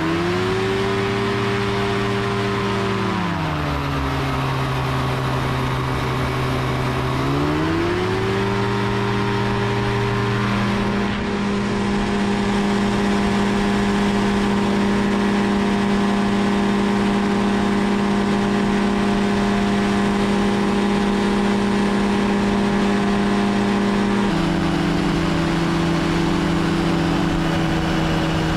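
Powered parachute's engine and pusher propeller running loud and steady. The pitch drops a few seconds in, climbs again around eight seconds as power comes up for the takeoff run and climb-out, and steps down slightly near the end as power is eased back.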